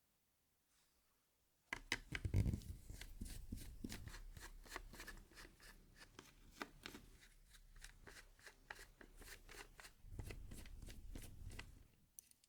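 Rustling handling noise: a dense run of small clicks and crinkles, with a low rumble at first and again for the last two seconds before it stops.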